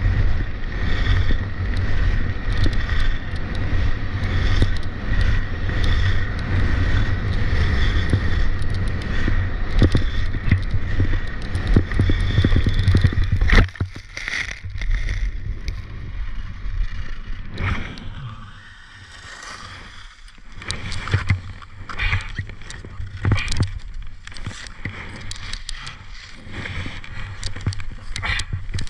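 Skis scraping down a hard, icy piste with a steady wind rumble on a helmet-mounted camera. About 14 seconds in, a sudden crunching impact as snow sprays over the lens, in what looks like a fall. After that the rumble drops away, leaving quieter scraping and scattered knocks of skis and poles.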